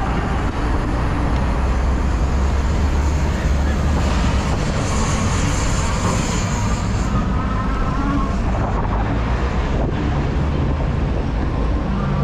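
Steady street traffic noise with wind rumbling on the microphone.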